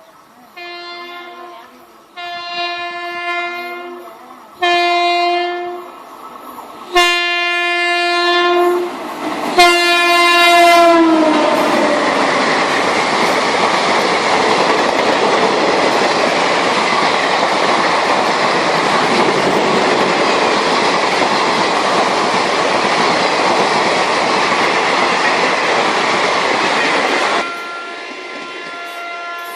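Indian Railways train horn sounding five blasts that grow louder, the last one falling in pitch as the train passes. A loud steady rush of the passing train follows for about fifteen seconds, then a fainter steady horn tone near the end.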